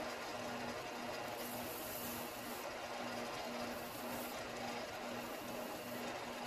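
Delta combination belt and disc sander running steadily, a small pine block pressed against the sanding belt, with a hum and a faint tone under the grinding noise.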